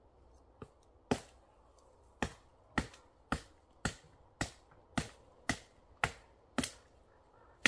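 A hand tool striking wood in a steady rhythm: about a dozen sharp blows, most roughly half a second apart, starting about a second in.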